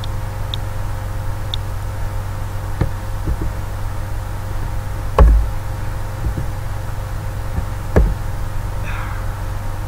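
Three dull knocks on a computer desk from keyboard and mouse use, over a steady low electrical hum; the loudest knock comes about five seconds in.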